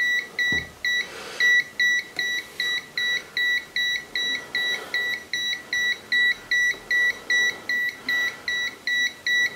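Kaiweets HT208D clamp meter's non-contact voltage detector beeping steadily, about three short high-pitched beeps a second: its alarm that it senses live mains voltage nearby.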